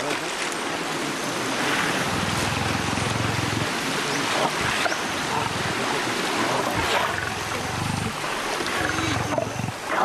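Steady rushing noise with no words, over which lions growl low a few times as they drag a buffalo calf out of the water.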